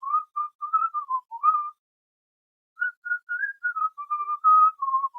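A person whistling a tune through pursed lips: two short melodic phrases of clear, clean notes, with a pause of about a second between them.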